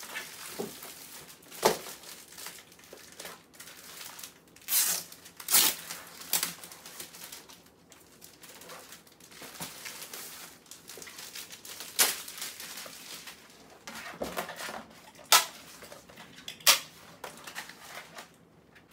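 Clear plastic binder sleeves rustling and crinkling as they are handled and filed into a ring binder, with sharp clicks and snaps now and then as the sheets go onto the binder's metal rings.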